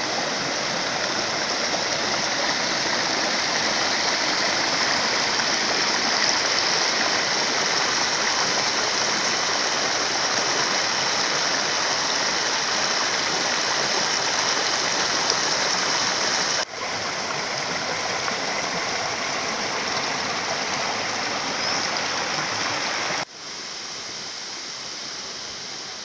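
Shallow forest stream rushing and splashing over rocks, a steady hiss of running water. It drops abruptly in level twice, about two-thirds of the way through and again near the end.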